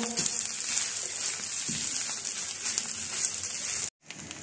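Chicken mince sizzling and crackling in a hot non-stick tawa over a high flame as it is stirred. The sound cuts out abruptly for a moment near the end, then carries on quieter.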